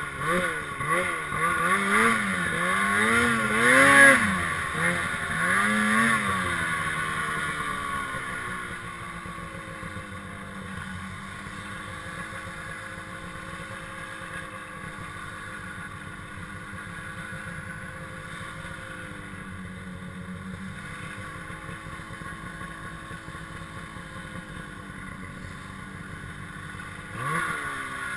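Snowmobile engine revving up and down in quick repeated swells for the first several seconds, then settling into quieter, steady running, and revving up again briefly near the end.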